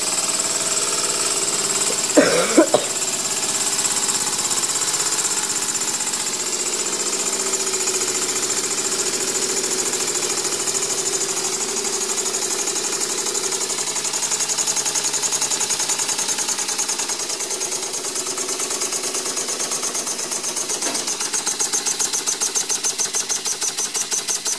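Homemade steam engine running under steam, with a steady hiss of escaping steam throughout. Near the end its exhaust puffs stand out as an even beat of about four a second. A short sharp sound comes about two seconds in.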